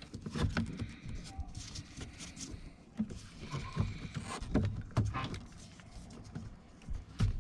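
Irregular clicks, light knocks and rustling of car-door interior parts being handled and worked loose by hand, with a few sharper knocks about three, four and a half, five and seven seconds in.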